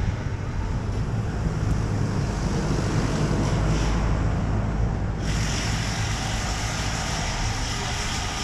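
Outdoor street ambience: a steady low rumble of traffic with wind buffeting the microphone, and a brighter hiss joining about five seconds in.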